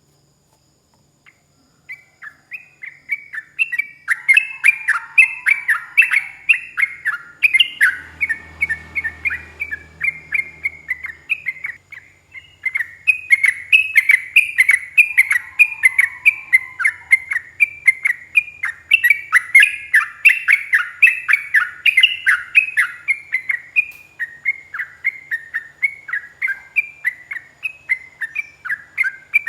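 Yellow-vented bulbul (trucuk) singing a long, fast, unbroken run of sharp chirping notes, several a second. The song starts about two seconds in and pauses briefly about twelve seconds in.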